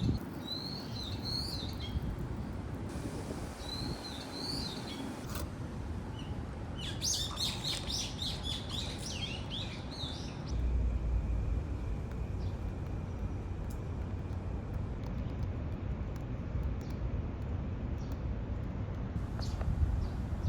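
Small birds chirping in several short bursts during the first half, over steady outdoor background noise; a low rumble sets in about halfway through.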